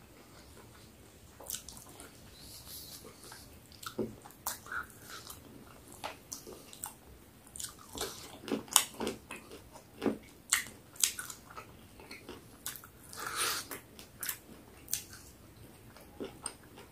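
A person biting and chewing peri peri chicken, with irregular wet smacks and clicks from the mouth, busiest midway.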